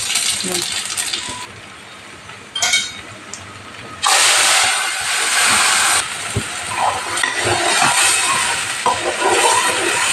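Cumin seeds sizzling in hot oil in a kadai. About four seconds in, a ground masala paste poured from a mixer jar hits the hot oil and sets off a loud, sudden sizzle, which keeps going as the paste fries.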